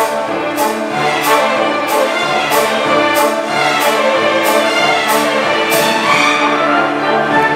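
School symphony orchestra playing, strings and brass holding sustained chords over a steady beat of sharp percussion strikes, about three every two seconds; the strikes stop about six seconds in while the orchestra plays on.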